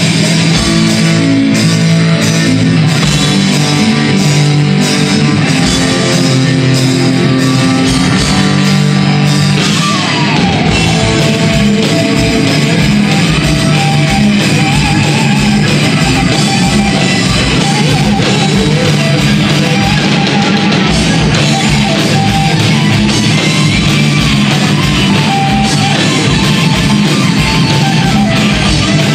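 A heavy metal band playing live: distorted electric guitars and bass over a fast drum kit.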